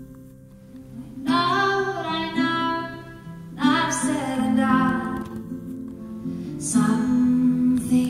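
Woman singing to her own acoustic guitar. The guitar plays alone for about the first second, then three sung phrases follow over it.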